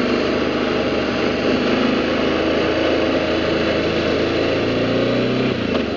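BMW G650GS single-cylinder motorcycle engine running steadily while riding, under a steady rush of wind noise. The engine note drops shortly before the end as the bike slows.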